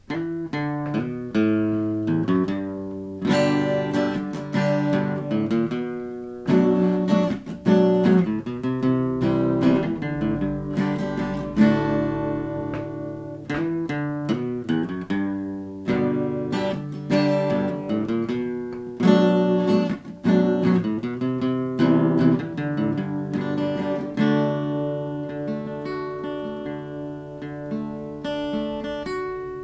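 Solo acoustic guitar playing the instrumental introduction to a song, picked chords and single notes ringing out and changing every few seconds.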